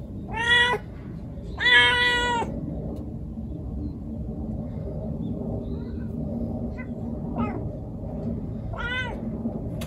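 Young female cat in heat calling: two loud yowls, a short one about half a second in and a longer one held level at one pitch a second later, then two fainter, shorter calls near the end. A steady low hum runs underneath.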